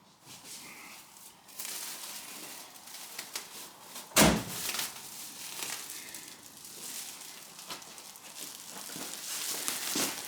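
A large bag of old car carpets rustling and crinkling as it is handled and pulled out, with one loud thump about four seconds in.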